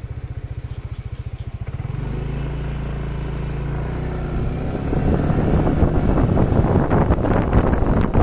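A small engine putters at a fast, even beat, settles into a steady hum about two seconds in, and a rushing, wind-like noise builds over it in the second half.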